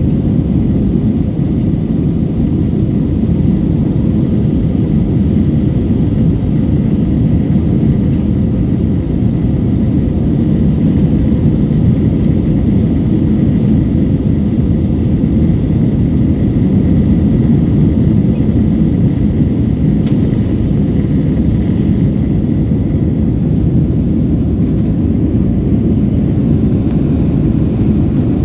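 Cabin noise inside an Airbus A321-231 climbing after take-off: a steady, deep rumble from its IAE V2500 turbofan engines and the air rushing past the fuselage, with a faint thin tone above it.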